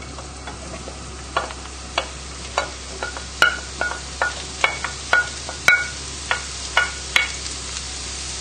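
Mushrooms and chopped onion sizzling in hot oil in a non-stick frying pan, while a wooden spoon scrapes them off a plate into the pan. A string of about a dozen sharp knocks of spoon on plate and pan runs through the middle, some ringing briefly.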